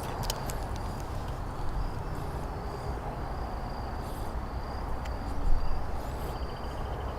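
Wind buffeting the microphone as a steady low rumble, with a thin high insect trill coming and going over it.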